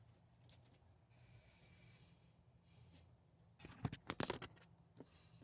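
Handling noise: a few light clicks, then a short burst of rustling and clattering about four seconds in, over a faint steady low hum.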